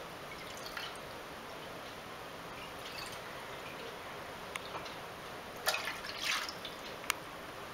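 Water poured from a glass into a wide nonstick frying pan, splashing in short pours, the loudest a little past halfway, over a steady faint hiss.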